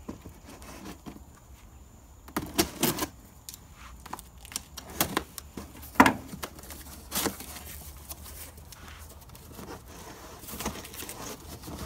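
Cardboard shipping box being torn open by hand: a string of short rips and knocks of cardboard flaps, the loudest about six seconds in, with softer rustling of the cardboard near the end.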